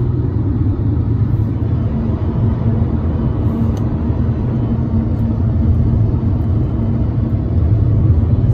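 Steady low drone of a vehicle's engine and road noise heard from inside the cabin while driving, with an even low hum throughout.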